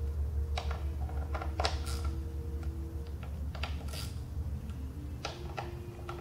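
Irregular metal clicks and taps from a hand Torx driver fitting and tightening the screws of a Harley-Davidson Softail's primary access cover, over a low steady hum.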